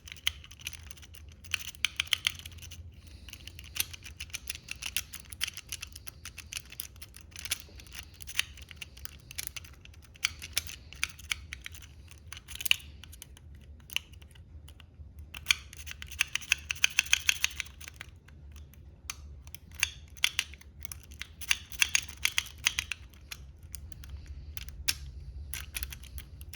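A lock-pick rake being scrubbed in and out of a Chateau lock's keyway, making fast, irregular runs of small metallic clicks and scrapes as it drags over the pin tumblers, in bursts with short pauses; the lock does not open.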